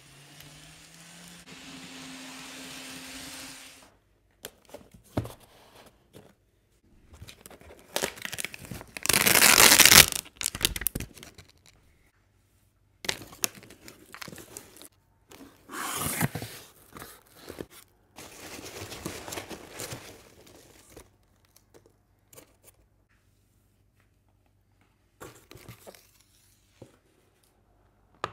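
For the first four seconds, an N-scale Kato P42 model locomotive's motor runs with a whine that rises in pitch and then holds steady. After that, a cardboard shipping box is torn open, loudest about nine to eleven seconds in, followed by bursts of rustling and crinkling as foam packing peanuts are moved about and a plastic case is taken out.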